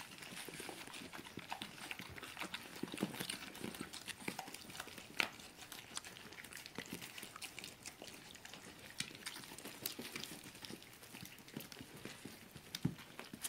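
Puppies and their mother dog lapping and licking up wet puppy gruel from a bowl and mat, a steady run of irregular wet clicks and smacks.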